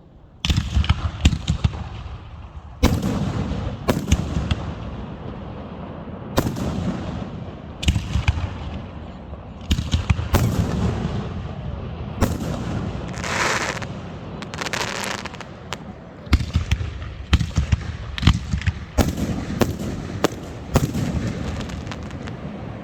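Fireworks going off: a run of sharp bangs, one after another every second or so, with rumbling echoes and crackle between them.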